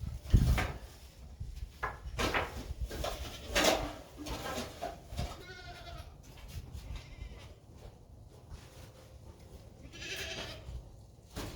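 Boer goats bleating several times, one long wavering bleat about five seconds in, with a loud knock about half a second in.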